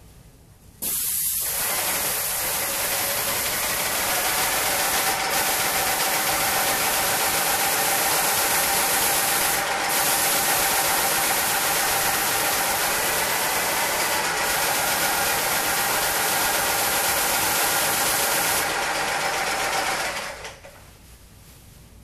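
Paint sprayer spraying a ceiling through a pole-mounted gun: a loud, steady hiss with a motor hum under it. It starts abruptly about a second in, dips briefly in the hiss a few times, and stops about twenty seconds in.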